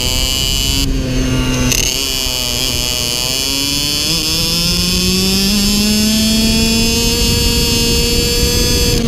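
IAME X30 Super 175 cc two-stroke shifter-kart engine at racing speed, heard onboard. About a second in the note briefly changes, then the revs climb steadily for several seconds under acceleration and hold high near the end, over a constant low rumble.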